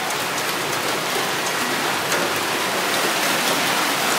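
Hailstorm: hail and heavy rain falling, a dense steady hiss full of sharp ticks of hailstones striking.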